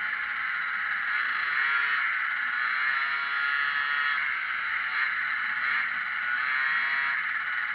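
Yamaha Jog scooter's small engine running under way, its pitch rising and falling several times with the throttle over steady riding noise.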